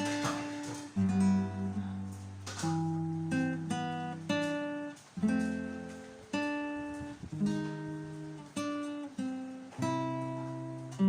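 Acoustic guitar playing chords, a new chord struck about once a second and left to ring and fade before the next.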